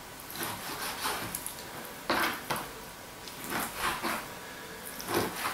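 Kitchen knife cutting raw pork into cubes on a plastic cutting board: several separate slicing strokes about a second apart, the blade scraping through the meat and tapping the board.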